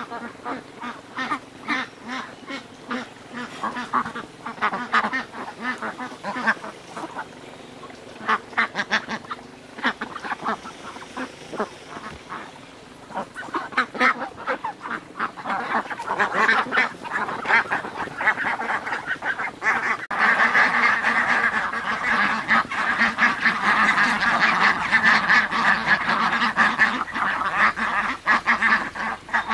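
A flock of white domestic ducks quacking. At first the calls are scattered, and about halfway through they build into a dense, continuous chorus.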